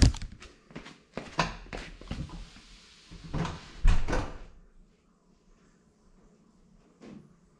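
Knocks and thuds, the loudest right at the start as the small FPV drone comes down onto the tile floor. A few more knocks follow over the next four seconds, then it goes quiet apart from one faint bump near the end.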